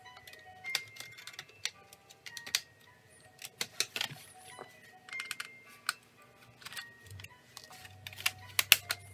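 Plastic clicks and snaps, irregular and uneven in loudness, as a Dell Inspiron N5110 laptop keyboard is pried out of its clips with a plastic pry tool and handled. Quiet background music with a few held notes plays underneath.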